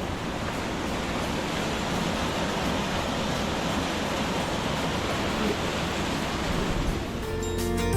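Steady, even rush of a waterfall's falling water. Music comes in near the end.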